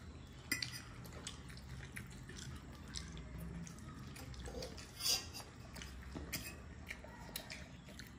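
Eating at a table: scattered light clicks and clinks of a plate and utensils while momos are eaten, the sharpest about half a second in and again about five seconds in.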